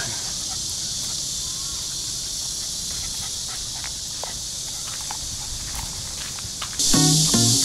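Steady high-pitched insect chorus with faint scattered footstep clicks; background music starts near the end.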